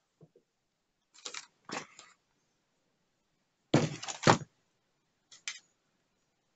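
A paper drawing pad being handled and laid on a table: a couple of brief rustles, then a louder double thump about four seconds in as it is set down, and a light tap near the end.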